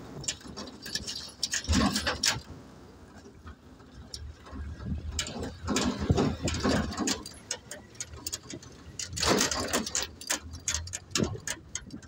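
Vehicle cabin rattling and clattering while driving over a rough, broken gravel road, with irregular clusters of clicks and knocks over a low road rumble.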